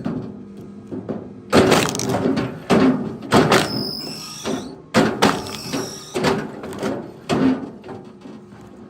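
Heavy wooden knocks and cracks of firewood being worked, about one a second, some with a short high squeal or ring after the hit.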